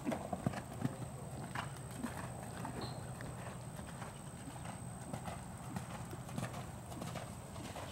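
A horse's hooves on sand arena footing: the landing from a jump, then cantering hoofbeats, with the loudest knocks about half a second in.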